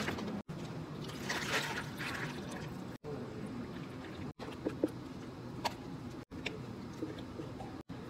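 Liquid poured over ice cubes in a plastic cup for an iced americano: water and then espresso, in short clips, with a few light clicks of ice.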